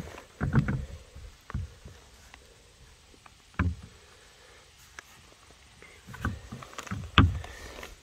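Handling knocks on the upturned plastic hull and wheel of a layout duck boat: a handful of separate dull thumps with pauses between them, the loudest near the end.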